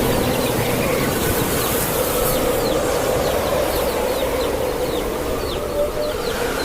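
Chicks peeping, a string of short falling cheeps, over a steady rushing background of wind.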